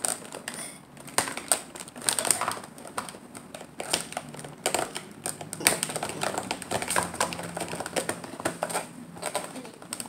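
Stiff plastic blister packaging of a toy pack being pried and peeled open by hand: a dense, irregular run of sharp clicks, crackles and crinkles.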